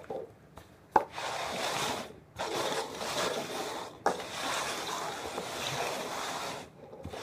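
Disposable cups being slid and shuffled over a carpeted floor: a steady rubbing scrape in three long stretches after a sharp tap about a second in, as the treat-hiding cups are moved around.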